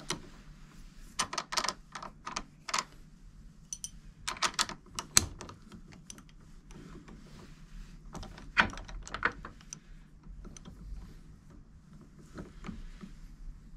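Steel collet block being turned and reseated in a milling-machine vise: scattered metal clicks and knocks in short clusters, the loudest knock about five seconds in.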